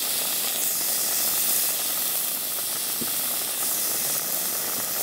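Bacon frying on a hot stainless-steel plancha: a steady, even sizzle.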